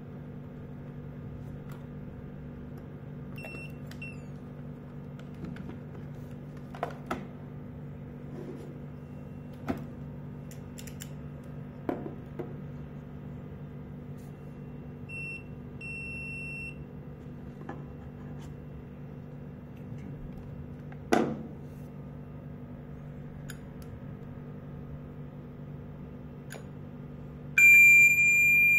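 Electronic beeps from a video door-phone intercom system: brief faint beeps a few seconds in and about halfway, then near the end a loud, steady high-pitched beep. Under them a low steady hum and scattered clicks of wires and connectors being handled.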